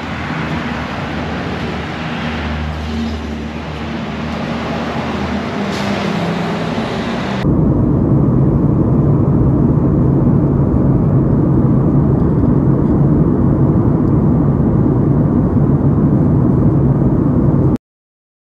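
Steady motor vehicle noise: an engine hum under road noise. About seven seconds in it changes abruptly to a louder, deeper rumble, which cuts off suddenly near the end.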